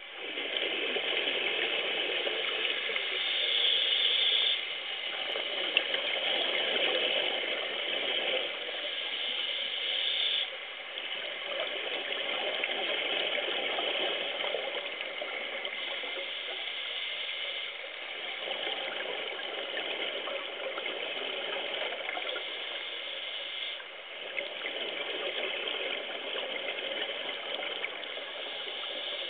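Scuba diver's regulator breathing, heard underwater: hissing inhalations alternate with gurgling exhaled bubbles, about one breath every six seconds.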